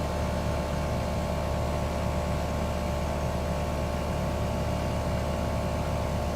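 Newly installed Ruud Achiever 2.5-ton air conditioner condenser running steadily: an even hum from the compressor and fan with several steady whining tones over it.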